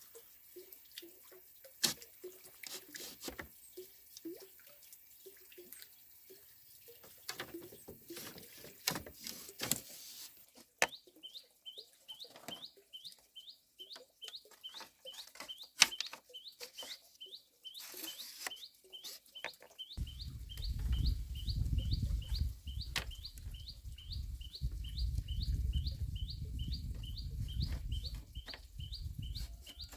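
Scattered taps and clicks, then an even run of short high chirps, about two or three a second, with a low rumble joining in over the second half.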